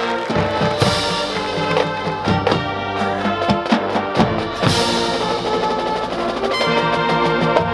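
High school marching band playing its field show: held chords over drum and mallet percussion, with many sharp drum strikes and two loud crashes, about a second in and a little past halfway.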